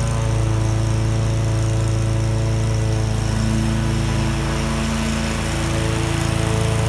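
Kawasaki FS481V V-twin engine of an eXmark Turf Tracer 36-inch hydro walk-behind mower running steadily while mowing. The engine sound dips slightly around five seconds in, then picks back up.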